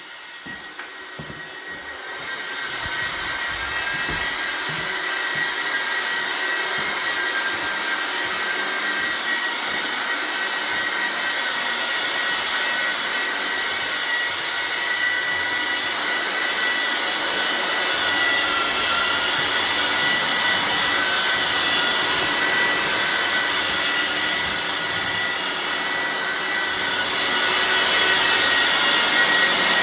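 Electric floor sanding machine running with a steady high-pitched whine over a broad hiss. It builds up over the first couple of seconds and gets louder again near the end.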